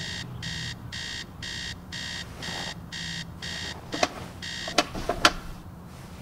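Electronic alarm clock beeping in a steady repeating pattern, about two beeps a second. The beeps stop a little under five seconds in, among a few sharp clicks from the clock as it is hit and switched off.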